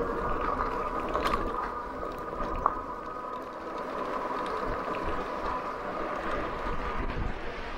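Magicycle Cruiser e-bike's rear hub motor whining steadily under power, over the crunch and hiss of fat tyres rolling on a gravel road and wind rumbling on the microphone. One short sharp tick about two and a half seconds in.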